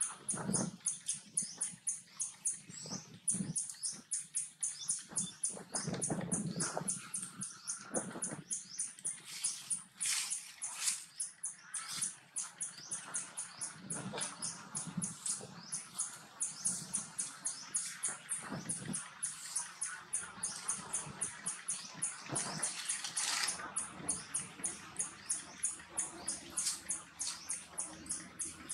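Baby macaque giving thin squeaks and whimpers while rooting at its mother's chest for milk, the sound of a hungry infant. A fast, even, high-pitched pulsing runs underneath throughout.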